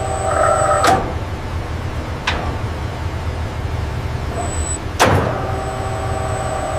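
Factory machinery running with a steady low hum, broken by three sharp clacks, and a pitched mechanical whine of several tones that sounds in the first second and again after the last clack.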